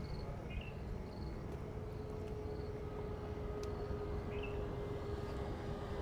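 A steady low outdoor rumble with a faint steady hum under it, and short high insect chirps repeating every second or so.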